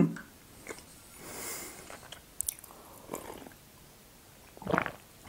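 Quiet close-up mouth sounds of sipping from a mug and swallowing, with a few small clicks. There is one louder gulp near the end.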